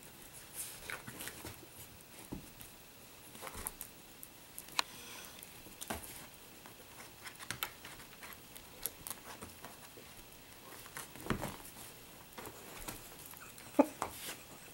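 Italian greyhound rolling and wriggling on her back on carpet while wrestling a plush toy: scattered soft scuffs, rustles and taps of fur and paws on carpet. A brief pitched sound comes near the end and is the loudest moment.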